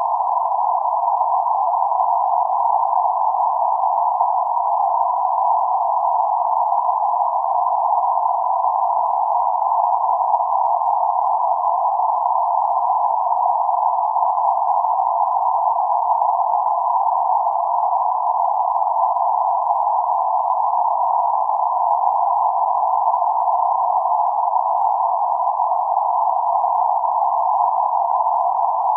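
Synthetic band-limited noise centred around 848 Hz: a steady, unchanging hiss, with nothing below about 500 Hz or above about 1.5 kHz.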